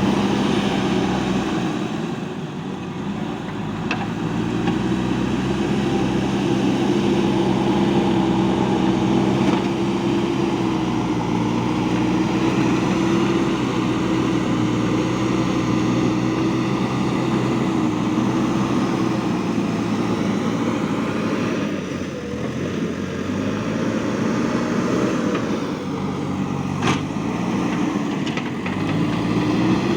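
JCB 3DX backhoe loader's diesel engine running steadily under work, its pitch dipping briefly twice in the second half, with a single sharp knock shortly before the end.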